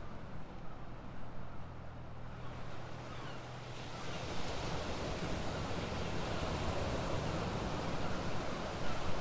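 Sea surf washing and breaking over coastal rocks, with wind. The rushing grows louder about three to four seconds in, over a low steady hum that fades out.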